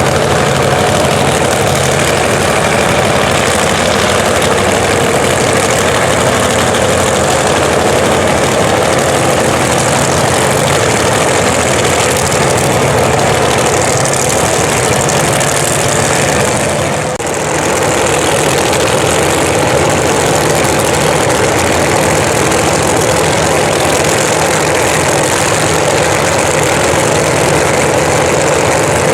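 Supercharged (blown) Hemi drag-racing engine running loudly and steadily, with a brief dip about seventeen seconds in.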